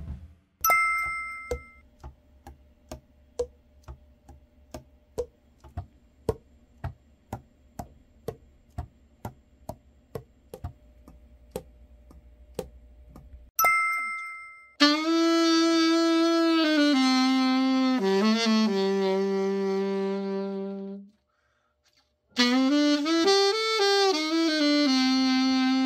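The overhauled Yamaha YAS-62 alto saxophone being play-tested: long held notes stepping down in pitch, a short pause, then more held notes. Before it, a two-tone chime, then a long run of sharp clicks about two a second, then another chime.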